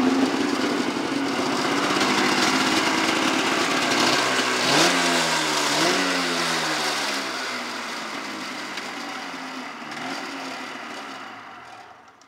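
1999 Polaris XCR 440 snowmobile's two-stroke twin running, blipped twice about four to six seconds in, then settling back and dying away near the end as it is shut off.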